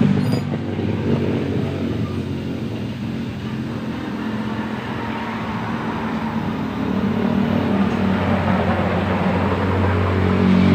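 Honda TMX 125 Alpha's single-cylinder four-stroke engine idling steadily while it is being tuned. It gets a little quieter for a few seconds in the middle, then louder again near the end.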